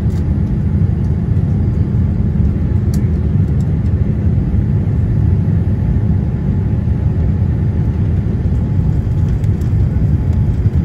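Steady low rumble of a Boeing 787-8's engines and airflow, heard inside the passenger cabin in flight just after takeoff.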